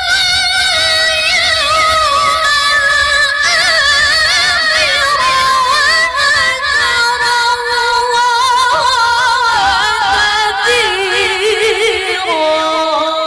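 A woman reciting the Quran in the melodic tilawah style, singing one long unbroken line full of wavering ornaments. The line slowly descends in pitch and settles on a lower held note near the end.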